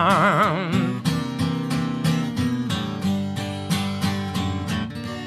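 A woman's sung note with a wide vibrato, held for about the first second, then acoustic guitar strumming chords in a steady rhythm.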